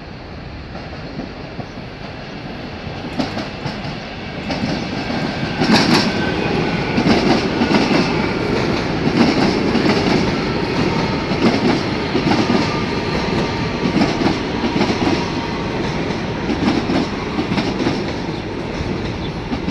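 A CSR electric multiple unit arrives and runs in along the platform, growing louder over the first few seconds as it approaches. Its wheels click over the rail joints and rumble on the rails, with a faint whine that falls in pitch as the train slows.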